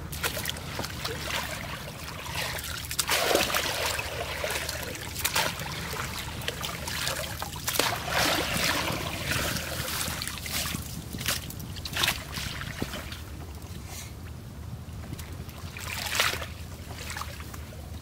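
Shallow muddy water splashing and sloshing, with grass rustling, as a woven bamboo fish basket is pushed through it and lifted out. Water trickles off the basket between irregular swishes.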